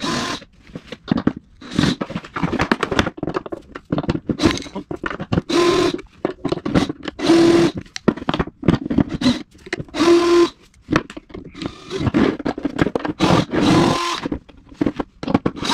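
Cordless drill with a nut-driver bit spinning the truck nuts off a skateboard's mounting bolts in several short bursts of about half a second each. Between the bursts, the bolts, screwdriver and board click and scrape as they are handled.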